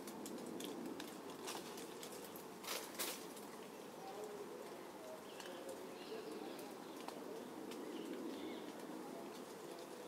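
A rose-ringed parakeet feeding on unripe pears in a pear tree: a scatter of sharp clicks and snaps, the two loudest close together a little under three seconds in. Faint short bird chirps come in the second half over a low background noise.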